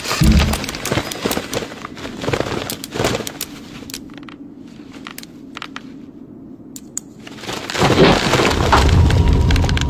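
Cartoon sound effects of cracking and crunching: several sharp cracks and thumps in the first few seconds, a quieter stretch, then a louder, denser low crunching from about eight seconds in.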